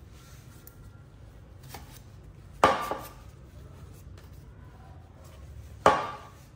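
Two sharp knocks of a hand tool striking a workpiece, about three seconds apart, each dying away briefly, with a fainter tap shortly before the first.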